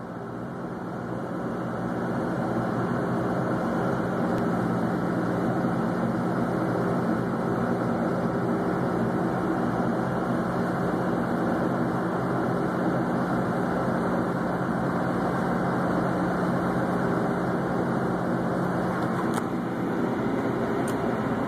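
Tugboat's diesel engine running steadily under way: a constant low drone with a steady hum, growing to full level over the first couple of seconds.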